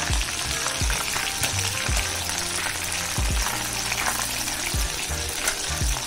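Breaded chicken lollipops deep-frying in hot oil in a steel kadai, a steady bubbling sizzle, moved about now and then with a slotted metal spatula. This is the second fry that makes the coating crisp.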